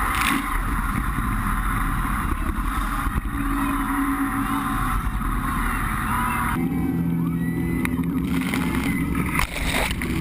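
Jet boat running through whitewater rapids: a loud rush of churning water and waves breaking over the boat, which changes abruptly about two-thirds of the way in.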